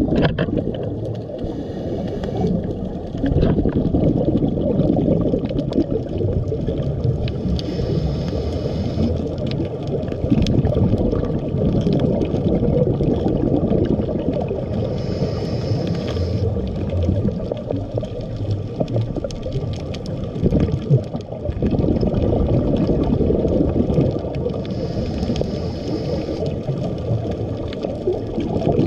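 Underwater sound on a coral reef: a dense low rumble and crackle of moving water and bubbles, with scattered sharp clicks. A short hiss comes about every eight to nine seconds, three times, in the rhythm of a diver's breathing.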